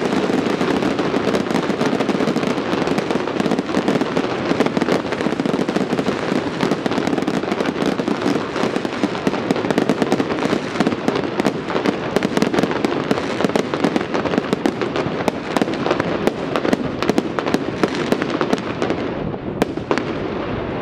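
Fireworks going off in a dense, continuous barrage of rapid pops and crackles.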